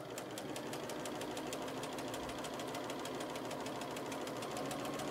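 Bernina sewing machine stitching steadily at a fast, even rhythm of needle strokes over the motor's hum, topstitching through a napkin's fabric layers.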